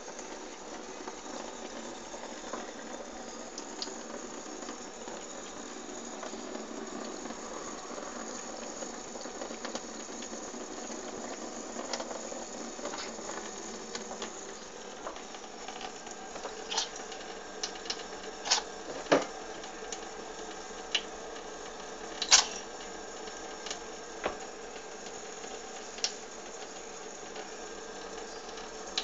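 Steady hiss of running water, with a string of short, sharp sounds in the second half, the loudest about two-thirds of the way through.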